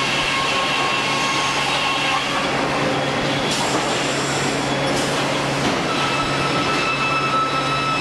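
Sawmill machinery running steadily, a dense mechanical din from circular saws, roller conveyor and electric motors. A high saw whine sits over it; one whine drops out about two seconds in and a higher one comes in near six seconds.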